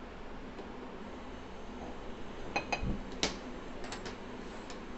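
A few light metallic clicks and clinks from an aluminium pressure cooker pan being set and shifted on a gas stove's cast-iron grate. The clinks come in the second half, with a soft knock just before the loudest one.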